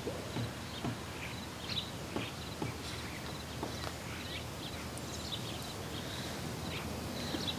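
Steady outdoor background noise with scattered faint, short bird chirps.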